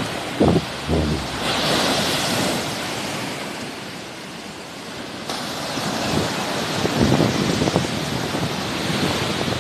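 Sea waves washing onto the shore, swelling and easing, with wind gusting across the microphone in low rumbles.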